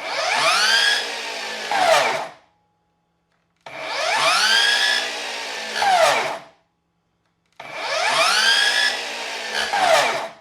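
Ryobi 36-volt cordless miter saw motor switched on three times with no load as a test run after reassembly: each time it spins up with a rising whine, runs for about a second and a half, then winds down quickly once released.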